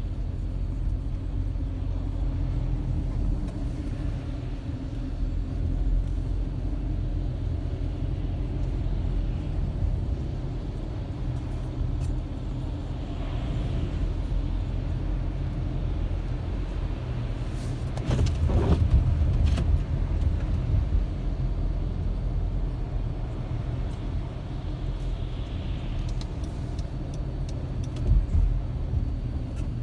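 Steady low road rumble inside a moving car, with tyres hissing on wet, slushy pavement. It grows louder for a couple of seconds a little past the middle.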